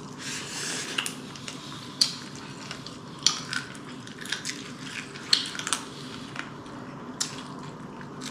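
Eating at the table: chewing, with a few sharp clicks of tableware against a plate scattered through it.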